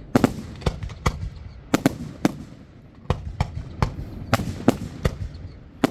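Fireworks exploding in an irregular rapid series, about a dozen sharp bangs in a few seconds.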